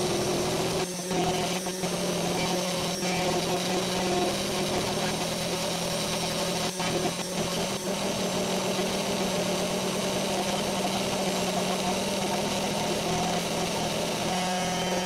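VEVOR S3018 Pro desktop CNC engraver running its engraving job on a piece of wood: the spindle motor runs with a steady hum, and a few faint ticks come about a second, three seconds and seven seconds in. The machine stands directly on a wooden board, which vibrates with it and makes it relatively loud.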